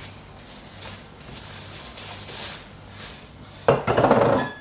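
Stainless-steel cookware and its packaging being handled: quiet rustling, then a loud clatter about three and a half seconds in that ends in a brief metallic ring.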